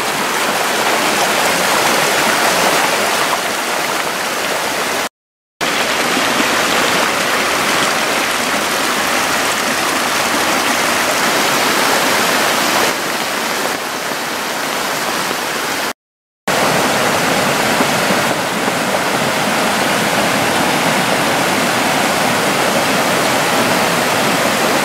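Storm floodwater rushing and churning down a flooded channel, a loud steady rush of water. The sound cuts out briefly twice.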